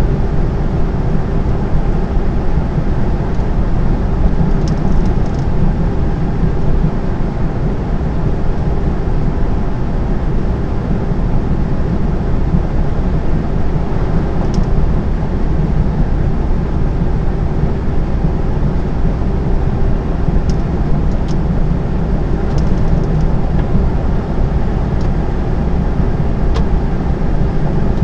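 Steady drone of a lorry's engine and road noise heard inside the cab while cruising on a motorway, with a few faint ticks now and then.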